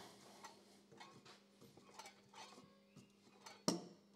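Faint metallic clicks and knocks from a 1952 Eckold Handformer shrinker as its lever is worked by hand to test the newly fitted return springs, with one louder knock near the end.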